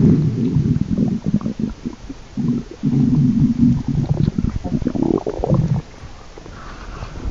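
Stomach growling: low rumbling laced with small pops, in two long spells with a brief break about two and a half seconds in, then dying down for the last second and a half.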